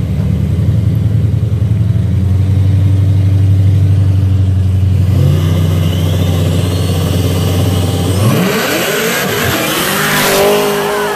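Turbocharged Buick Grand National and supercharged Cadillac CTS-V holding at the line with a steady low engine drone. About eight seconds in they launch, their engine notes rising steeply as they accelerate hard and pass close by.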